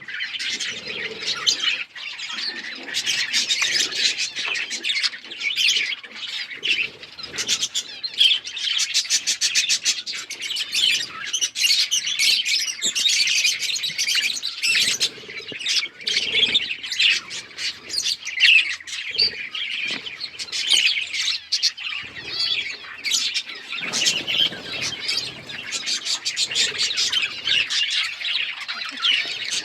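Budgerigars chirping and chattering without pause: a dense, overlapping warble of quick high chirps broken by rapid clicking runs.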